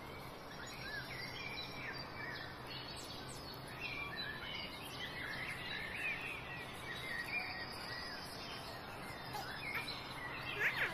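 Outdoor ambience of many small birds chirping in short calls over a steady background hiss, the chirping busier from about four seconds in.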